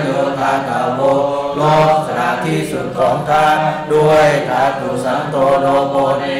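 A man chanting Pali in a steady recitation tone, held notes running on without pause.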